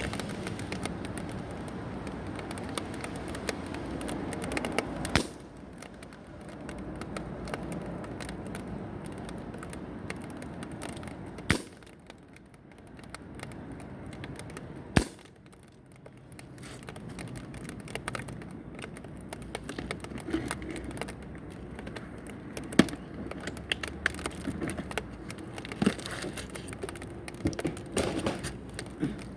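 Air gun shooting: three sharp cracks a few seconds apart, the last two about three and a half seconds apart, with smaller clicks and handling and rattling noise between them.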